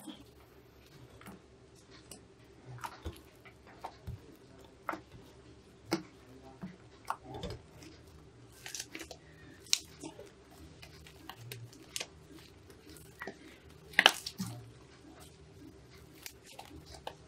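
Hands kneading and squeezing a thick lump of slime, making irregular sticky squelches and small pops, the loudest about fourteen seconds in, over a faint steady hum.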